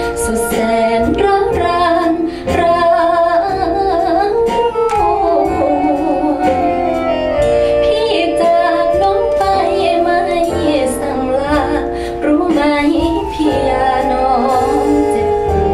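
A Thai song with a female lead vocal and instrumental backing, played back loud through large Gauder Akustik Berlina RC-11 floor-standing hi-fi loudspeakers in a listening room; it is a playback of a recording just made of the singer.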